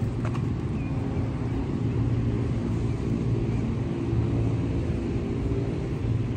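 Steady rumble of motor-vehicle traffic, with engine hum and tyre noise that holds at a constant level without pause.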